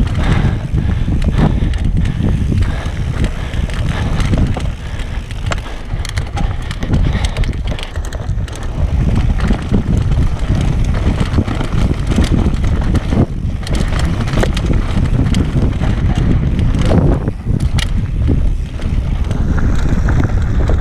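Wind buffeting the camera microphone as a Transition Patrol mountain bike descends dirt singletrack at speed, tyres running over dirt and rocks, with frequent clicks and rattles from the bike.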